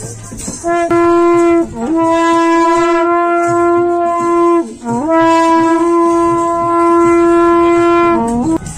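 Bhankora, the long curved metal horns of Garhwal, blown in three long held blasts on one steady note. Each break dips briefly in pitch before the note rises back. Near the end the note drops low and glides up before stopping.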